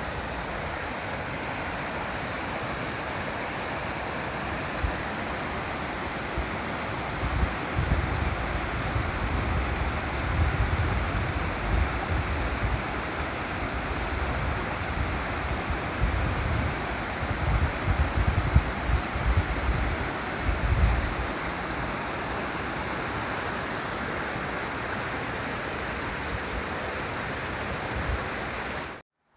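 Steady rush of flowing water, with irregular low wind rumbles on the microphone through the middle stretch. It cuts off suddenly just before the end.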